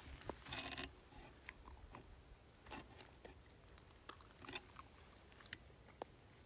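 Faint, scattered crunches and sharp clicks of dry twigs and needle litter on the forest floor. A longer crunching rustle comes about half a second in, and a few smaller ones follow later.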